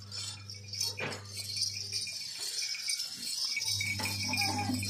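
Totapuri goat moving about, the beaded ornaments on its neck clinking, over a steady low hum that drops out for a second or two midway.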